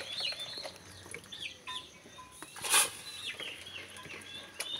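Chickens clucking with short chirping calls, and one brief noisy rush a little past halfway.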